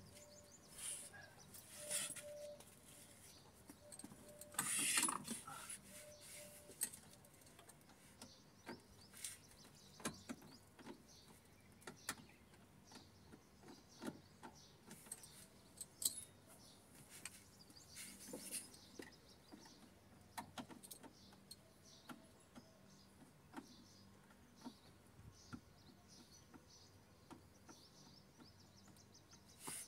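Faint, scattered clicks and knocks of hand tools and plastic and metal parts being worked on under a car's dashboard, with a louder scuffing rustle about five seconds in.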